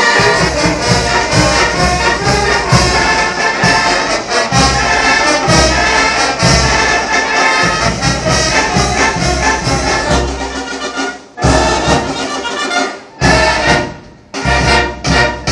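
A large brass band plays, with sousaphones, trumpets, trombones and clarinets over a steady bass-drum beat. About ten seconds in the playing breaks off into a few separate loud closing chords as the piece ends.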